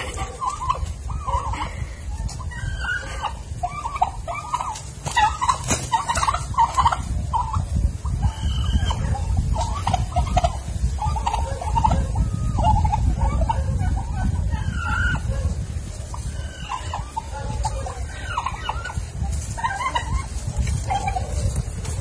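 Farmyard poultry, turkeys among them, calling with many short clucks one after another over a steady low rumble.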